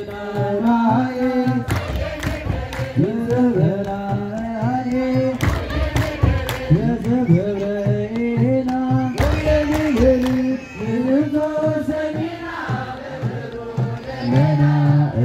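An Orthodox church congregation sings a hymn together, with the one melody gliding between held notes. A kebero drum beats irregularly under the singing.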